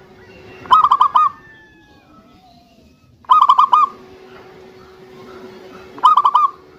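Zebra dove (perkutut) cooing: three short calls about two and a half to three seconds apart, each a quick run of about four clipped notes.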